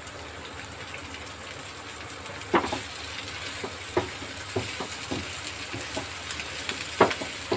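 Paneer cubes sizzling in a frying pan while a spatula stirs them through, with a steady hiss of frying. From about two and a half seconds in, the spatula knocks and scrapes against the pan several times, loudest near the start and near the end.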